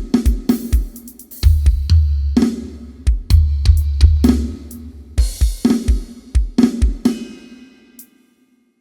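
Soundcheck groove of drums with a deep, heavy bass: kick, snare and hi-hat hits over long low bass notes, stopping and dying away about seven and a half seconds in.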